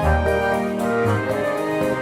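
Background music: an instrumental piece with a bass line and sustained chords changing about every second.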